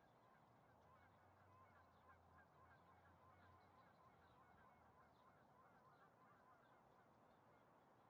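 Faint, distant bird calls: many short calls, several a second, over a faint low hum that is stronger in the first half.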